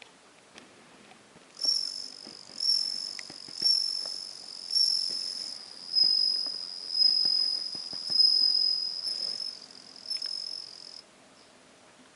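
Japanese bell cricket (suzumushi) singing: a high, ringing trill that starts about a second and a half in and swells in phrases about once a second. It then runs on more steadily before stopping about a second before the end.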